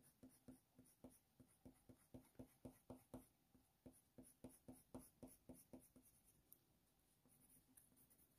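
Faint scratching of a white Faber-Castell Polychromos coloured pencil on hot-press watercolour paper, in short quick strokes about four a second that stop a little past halfway.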